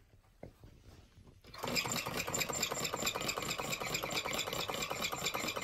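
Homemade can-built Stirling engine running with a fast, steady mechanical rattle from its wire crankshaft and CD flywheel. The rattle starts abruptly about a second and a half in, after near silence.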